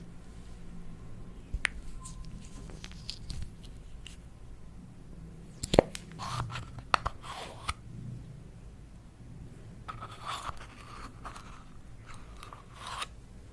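Slime being worked by hand, giving clusters of small crackles and pops with scattered clicks, and one sharp loud click about six seconds in.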